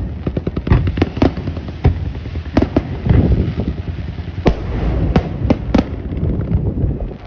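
Aerial fireworks bursting: a rapid crackling volley of small bangs, then single loud booms every second or so over a continuous rumble of echoing detonations.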